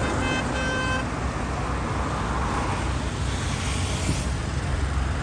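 Steady highway traffic noise from passing cars, buses and trucks, with a vehicle horn tooting twice in quick succession within the first second.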